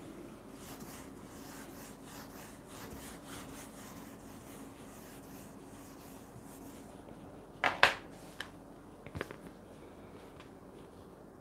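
Whiteboard duster rubbed back and forth across a whiteboard, a faint scrubbing in short strokes. About eight seconds in there is a brief louder clatter, and another smaller one a second later.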